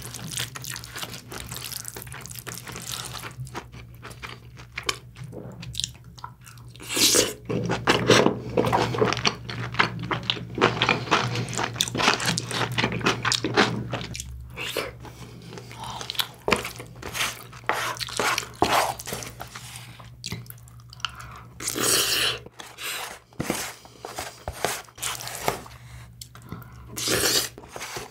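Close-miked eating sounds: wet chewing and smacking of mouthfuls of braised aged kimchi and rice, with light clicks of a wooden spoon and chopsticks against the container and a few louder bursts along the way.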